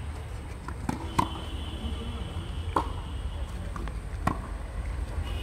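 Tennis ball being struck by rackets in a rally: three sharp hits about a second and a half apart, over a steady low rumble.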